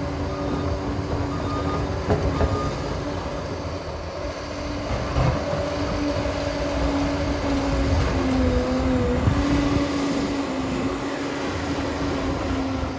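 Liebherr PR 746 crawler dozer running, a steady heavy diesel drone with a few knocks and clanks from the machine.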